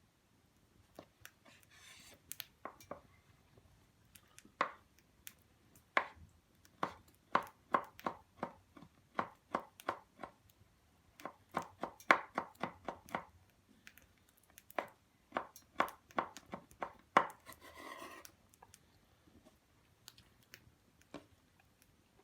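A long series of sharp knocks or taps on a hard surface, coming in runs of about two a second and then faster in the middle. A short scraping rustle comes a couple of seconds in and another near the end.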